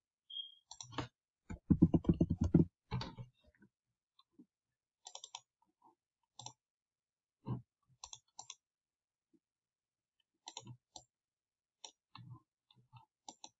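Computer mouse clicking: a rapid run of loud clicks about two seconds in, then scattered single and double clicks while files are picked and shapes are moved.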